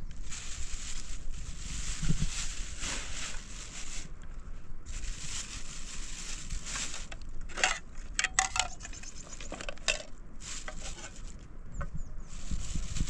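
Light metallic clinks and rattles over a hiss that comes and goes, with a quick run of ringing clinks about eight seconds in.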